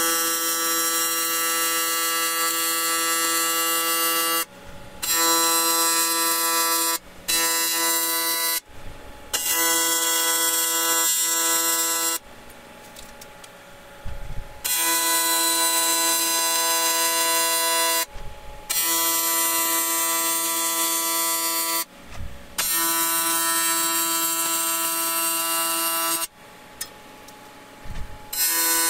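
AC TIG welding arc on aluminum from a Miller Dynasty 400, a steady buzz. It is struck in about eight runs of one to four seconds, with short pauses between them where the arc is off.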